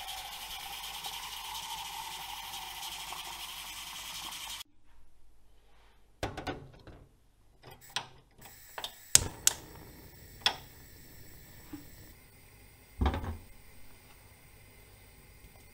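Tap water running into a metal pot at a stainless steel sink, cutting off after about four and a half seconds. Then a metal pot is set down on a gas hob grate, a few sharp clicks come from the stove knob about nine to ten seconds in, and a ceramic mug is set down on a stainless steel drainer near the end.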